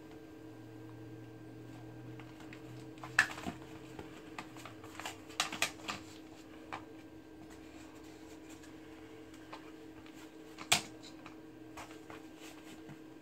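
Scattered sharp clicks and taps from hands and a small blade working at a white plastic shower drain clamping ring on a PVC shower pan liner, over a steady low hum. The loudest clicks come about 3 s in and near 11 s, with a cluster in between.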